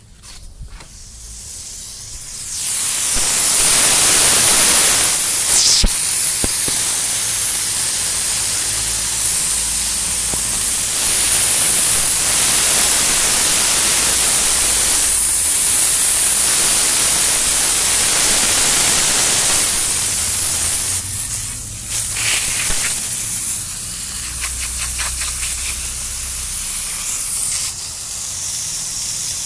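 High-pressure water hose spraying: a loud, steady hiss of water that swells in about two and a half seconds in, falters briefly around the twenty-second mark and steps down a little near the end.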